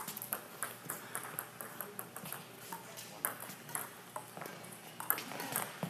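Badminton play in a sports hall: short, sharp taps of rackets striking shuttlecocks, several a second at uneven spacing, over a low hum of the hall.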